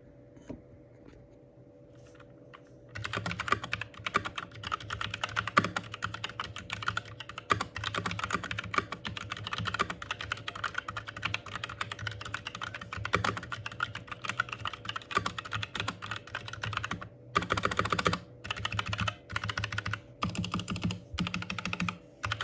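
Typing on an Epomaker GK68XS mechanical keyboard fitted with NovelKeys Cream linear switches: a fast, steady clatter of key presses starting about three seconds in, with brief pauses and a few quick bursts near the end.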